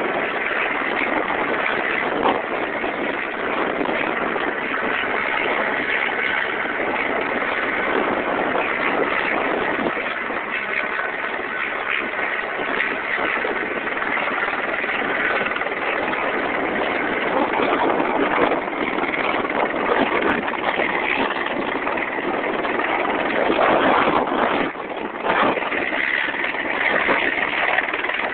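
Bell 206 helicopter's turbine and rotor running steadily while hovering with a slung load, with a brief dip in level near the end.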